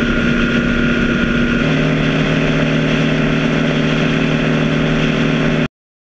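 BMW R1200GS flat-twin engine running at motorway cruising speed under steady wind and road noise, heard from a camera mounted on the bike. The engine hum drops in pitch about one and a half seconds in, and the sound cuts off abruptly near the end.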